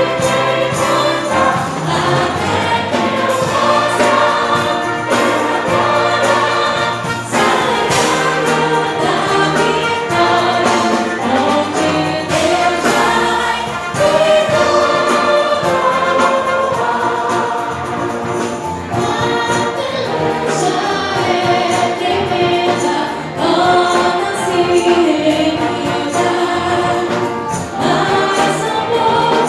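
A choir singing a gospel hymn with instrumental accompaniment, continuous and full.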